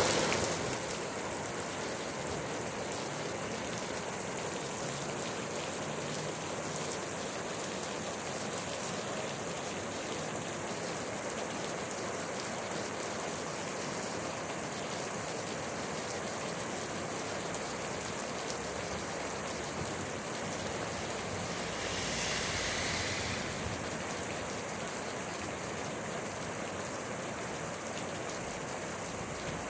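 Steady rain falling, an even hiss of drops, with a brief louder swell about three quarters of the way through.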